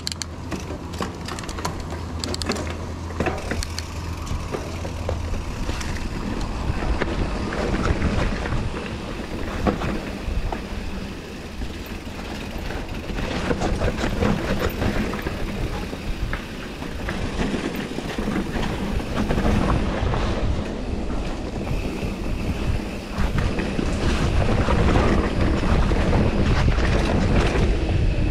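Mountain bike riding down a dirt trail: wind buffeting the microphone over tyre noise and the bike's rattles and knocks, louder over the last few seconds.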